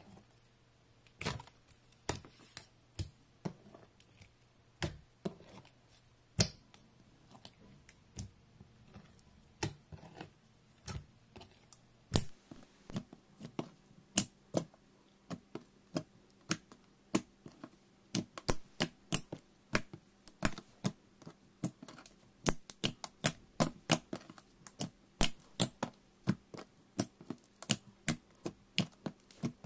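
Fingers pressing and kneading clear slime with yellow glitter mixed in, making sharp sticky clicks and pops as air pockets burst. The clicks come a few seconds apart at first, then several a second from about halfway through.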